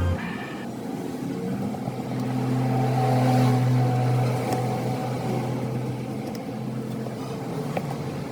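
Electric air blower running with a steady low hum and hiss of air, growing louder about three seconds in and easing off again.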